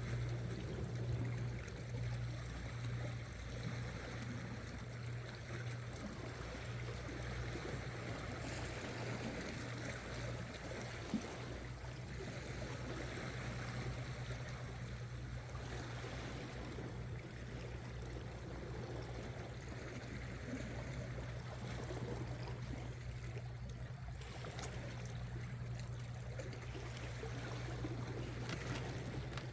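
Seawater lapping and trickling against shore rocks over a steady low hum, with a single sharp tick about eleven seconds in.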